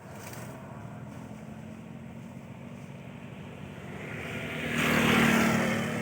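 A motor vehicle passing by: a low engine hum that swells to its loudest about five seconds in, then fades.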